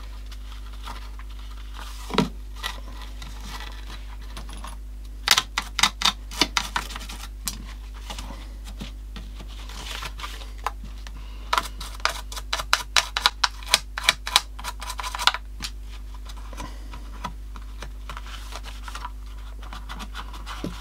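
Cloth scrubbing and rubbing the plastic case of a 1960s HMV Sprite transistor radio, working at scratches and dirt. Quick scratchy ticks come as the cloth and fingers pass over the ribbed front grille, busiest in two spells, with a low steady hum underneath.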